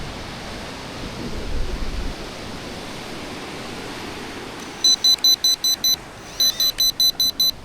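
Steady wash of surf and wind, then, about five seconds in, two quick runs of about seven high electronic beeps each.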